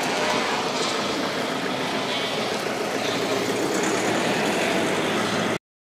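Class 66 diesel locomotive's two-stroke V12 engine running steadily, then the sound cuts off suddenly near the end.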